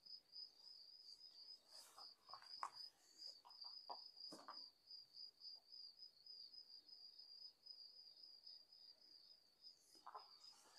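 A cricket's faint, steady, high-pitched trill, with a few soft clicks and crunches in the first half.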